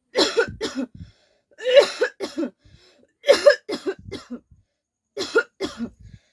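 A person coughing in four bouts of about three coughs each, the bouts roughly a second and a half apart.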